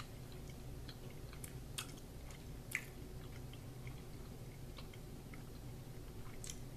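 Two people chewing a hard gummy candy with their mouths closed: faint, scattered mouth clicks and smacks over a low steady room hum.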